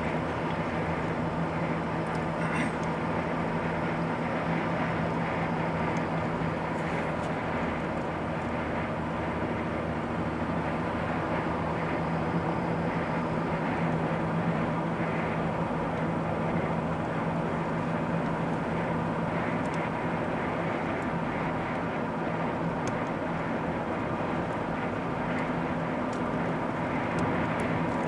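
A car's engine and tyre road noise while cruising steadily on an open road: an even rush with a constant low hum.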